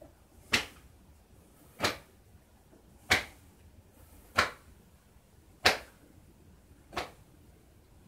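Hands slapping against the body as the arms swing loosely round in a Tai Chi self-massage percussion: six sharp slaps in a steady rhythm, about one every 1.3 seconds.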